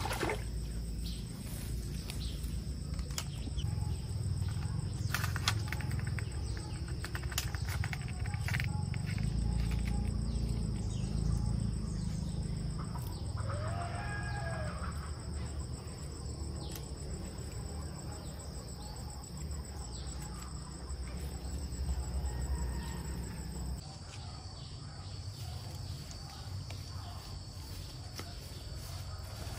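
Steady high-pitched drone of insects over a low rumble, with scattered clicks and knocks and one short animal call about halfway through.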